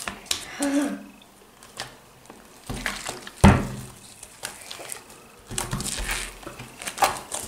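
Hands pressing, poking and kneading a lump of homemade borax slime on a tabletop: scattered small wet clicks and squelches, with one louder slap about three and a half seconds in.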